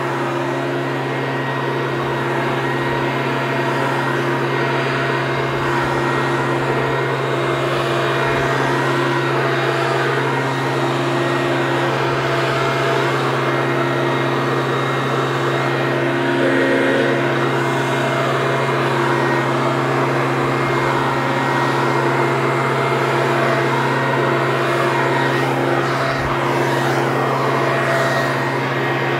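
Leaf blower running steadily at an unchanging speed, a constant motor hum over a rush of air.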